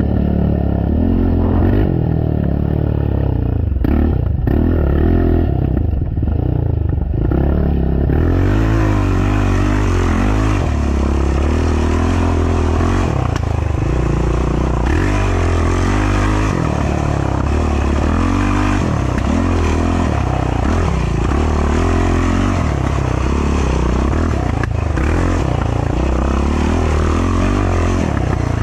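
Racing ATV's engine heard from onboard, running hard with the revs rising and falling continuously as the quad is ridden through the corners and ruts of a dirt trail. A few short knocks come through over the bumps.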